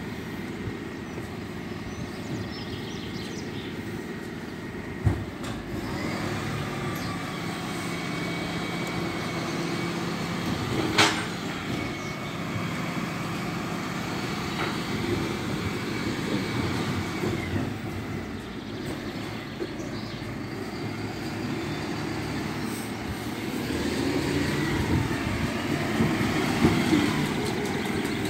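Bin lorry's diesel engine running as it drives slowly up the street, growing louder near the end as it comes close, with a sharp click about eleven seconds in.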